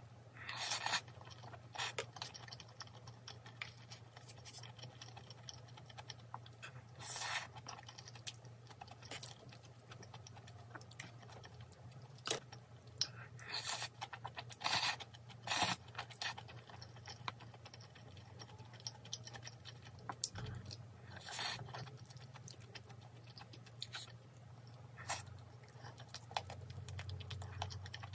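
Scattered clicks, scrapes and short rustling or crunching bursts of food, packaging and dishes being handled, over a low steady hum.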